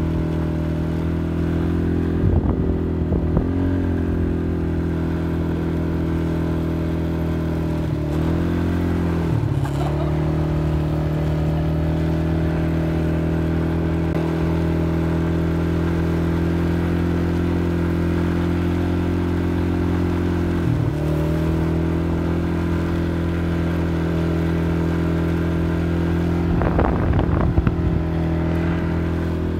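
ATV engine running at a steady speed while riding, its pitch dipping briefly three times. Near the end there is a stretch of knocking and rattling.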